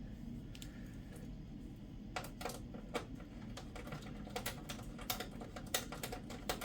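Screwdriver working a screw in a computer's CD drive bay. From about two seconds in there is a run of small, irregular metal clicks, a few a second, as the screw spins in place without backing out.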